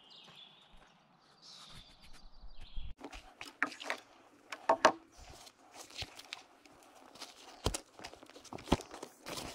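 Faint bird chirps, then from about three seconds in a folding camp chair is taken down: irregular sharp clicks and clacks of its aluminium poles as they are pulled apart, with rustling of the chair's fabric.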